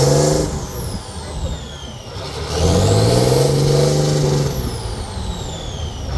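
Truck diesel engine revving hard under load on a steep climb. It falls off about half a second in, climbs again from about two and a half seconds, holds, then drops away before rising once more at the end, with a high whine rising and falling along with the revs.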